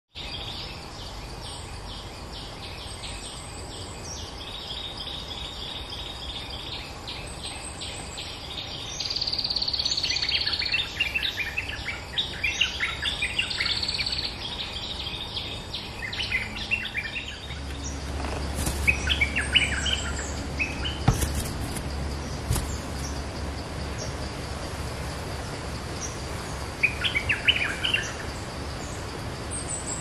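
Bulbuls singing in bursts of quick chattering notes, thickest between about nine and seventeen seconds in, with shorter bursts around nineteen seconds and near the end. A steady low rumble comes in at about eighteen seconds.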